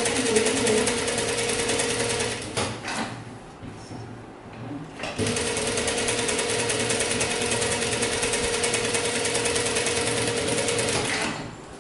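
Industrial sewing machine stitching a slanted trouser pocket through fabric and lining, running at a steady fast pace. It stops for about two and a half seconds a few seconds in, then runs again and stops near the end.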